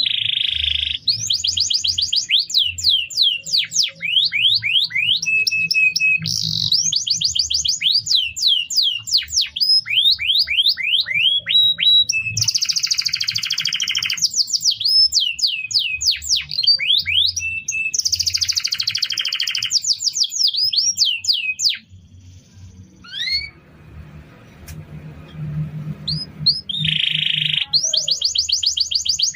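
Domestic canary singing a long, continuous song of rapidly repeated phrases: fast trills of sweeping notes alternating with buzzy rolls, broken by a short pause about three-quarters of the way through. A faint low hum runs underneath.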